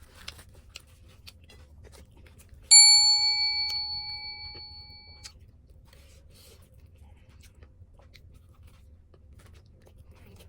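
A single bright metallic ding about three seconds in, ringing for about two and a half seconds as it fades, then cut off suddenly. Faint chewing clicks around it.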